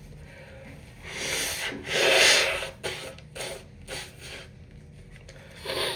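Tissue rubbing at the nose of a person with a stuffed-up cold, with breathy nasal rasps: a string of short rasping bursts, the loudest about two seconds in.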